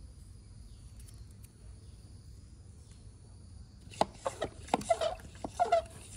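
Domestic fowl calling: a quick run of loud, sharp calls starts about four seconds in, over a faint steady background.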